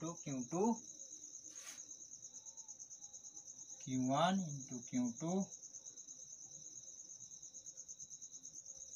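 A cricket trilling steadily in the background, a high, rapidly pulsing chirr. A few short spoken syllables cut in at the start and again around four to five seconds in.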